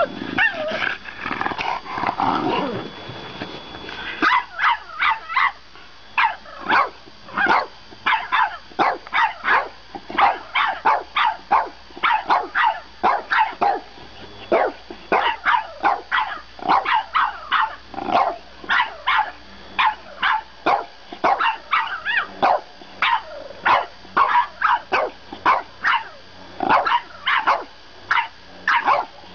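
French Bulldogs barking at each other: a drawn-out wavering grumble at first, then a long run of short, high barks at about two a second.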